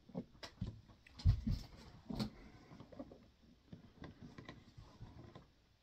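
Leather boots being handled and turned over by hand: scattered light taps and clicks, with a soft thump about a second in.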